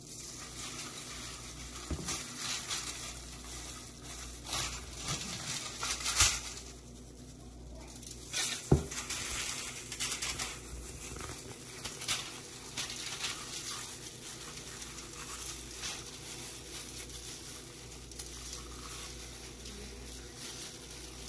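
Aluminium foil crinkling and clear plastic food-prep gloves rustling as a whole pompano is rubbed with seasoning and turned over on the foil, with a few louder crackles.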